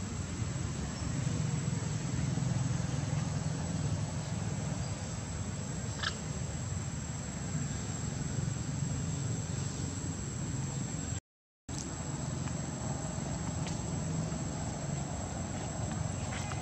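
Steady outdoor ambience: a continuous high insect drone over a low rumble, with no clear animal calls. The sound drops out completely for about half a second near the middle.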